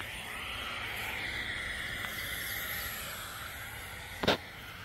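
A soft, steady hiss with one sharp click about four seconds in.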